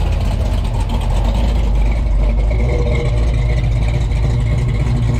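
The big-block V8 of a 1968 Chevelle SS 396 running steadily at low speed as the car rolls slowly past close by, with a deep, even exhaust note.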